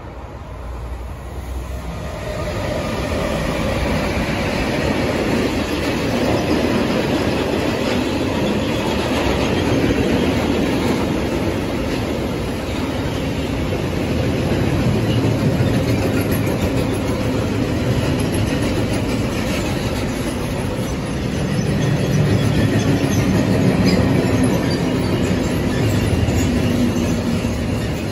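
Long electric freight train passing close by: the double-headed locomotives arrive, growing louder over the first couple of seconds, then a long string of freight wagons runs past steadily, with the noise of wheels on rails swelling and easing. Thin high wheel squeals come through now and then in the later part.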